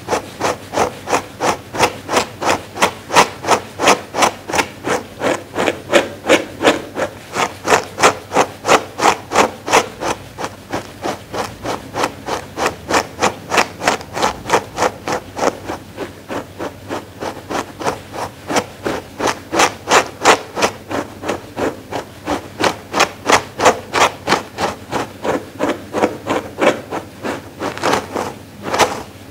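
Dog grooming brush stroked quickly and steadily over a thick faux-fur pad: a rhythmic rubbing at about three strokes a second.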